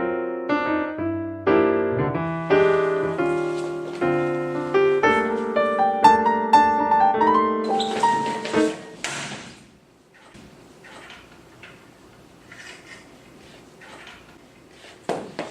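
Solo piano music playing a melody over repeated chords, fading out about nine seconds in. After it, only faint scattered knocks and clicks, a little louder right at the end.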